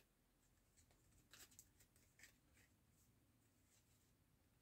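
Near silence, with a few faint short ticks and rustles in the middle from playing cards being handled.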